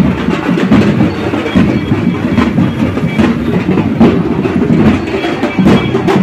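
Rapid, continuous beating on a large frame drum and a steel-shelled drum, a loud, dense clattering rhythm with no break.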